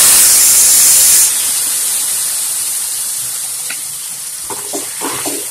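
Wet pressure-cooked sorrel leaves sizzling as they are tipped into hot oil and masala in a kadai. A loud hiss drops about a second in and settles to a steady, quieter sizzle. A few light scrapes and knocks come near the end.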